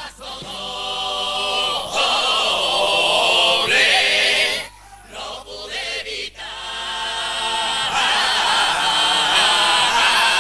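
Carnival comparsa chorus singing together: a long phrase that swells in loudness, a short drop about halfway, then a second long held phrase that cuts off sharply near the end.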